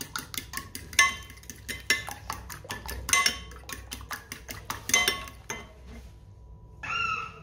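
A metal spoon whisking raw eggs in a glass bowl: rapid clinks of the spoon against the glass, several a second, stopping about five and a half seconds in.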